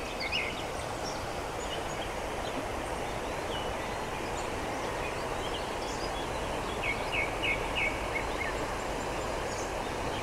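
Small songbirds chirping over a steady outdoor background hiss: a few short chirps at the start, and a quick run of four chirps about seven seconds in.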